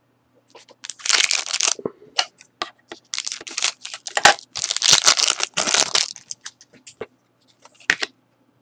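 Foil wrapper of a Panini Select hockey card pack being torn open and crinkled, in three long crackling stretches, followed by a few light clicks near the end.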